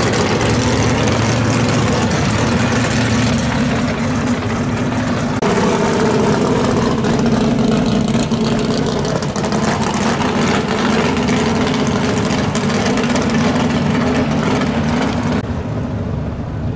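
Loud drag-race car engines idling as the cars drive slowly past, one car after another. The engine sound changes abruptly about five seconds in as a second car takes over, and gets quieter near the end.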